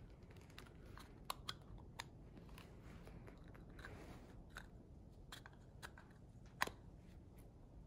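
Faint clicks and scrapes of a metal PCV breather valve cover being seated and turned on the valve body in gloved hands, with one sharper click about two-thirds of the way through.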